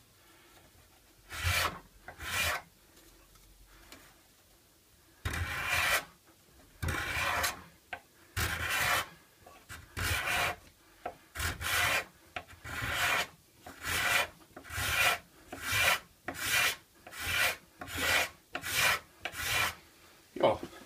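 Freshly sharpened steel card scraper drawn over a wooden strip, each stroke a short rasping scrape as its burr cuts shavings. Two strokes come near the start. After a pause a long run of strokes follows, starting at about one a second and getting shorter and quicker toward the end.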